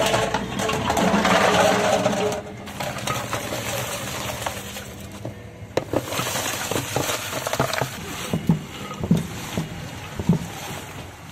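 Kulfi moulds clattering as they are tipped from a steel pot into a clay pot, then broken ice chunks sliding from a metal basin and knocking into the pot, with a string of sharp knocks from about six seconds in.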